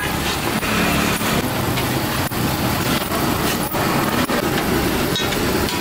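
Steady road traffic noise from a busy street, vehicle engines running.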